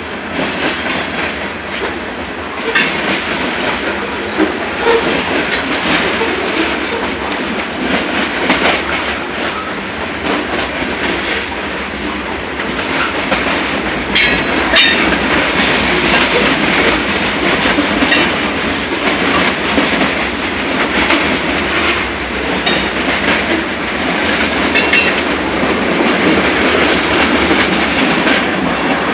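Freight train of covered hopper and tank cars rolling past, with a steady rumble and clatter of steel wheels on the rails and scattered sharp clicks. There is a brief louder sharp noise about halfway through.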